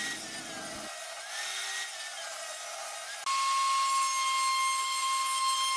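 A table saw running while a thin strip of wood is ripped, its tone wavering slightly under the cut. About three seconds in it switches abruptly to a louder router in a router table, running with a steady high whine.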